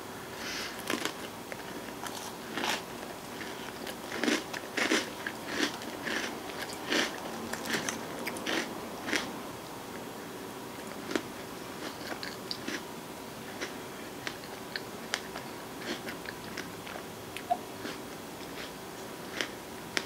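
Close-up chewing of a spoonful of ice cream with crunchy cookie and brownie-crisp toppings: crisp crunches, thick through the first half, then thinning to sparser, softer crunches.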